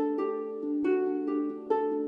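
Background music: a gentle plucked-string melody, its notes coming every few tenths of a second over a steady low tone.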